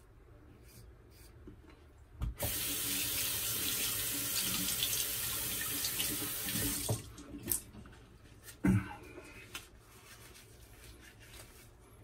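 Bathroom tap running into a sink for about five seconds, turned on a couple of seconds in and shut off, as a safety razor is rinsed mid-shave. A few short knocks follow, one louder than the rest.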